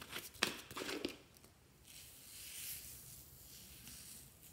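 A plastic lid worked off a glass jar with a few sharp clicks and knocks, then tiny foam beads poured from the jar onto slime, a soft, steady, high rustle from about two seconds in.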